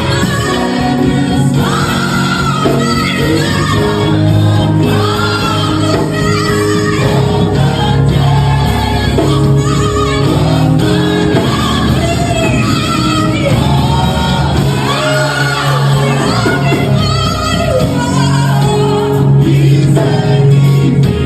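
Gospel music: a choir and lead voices singing over steady instrumental backing.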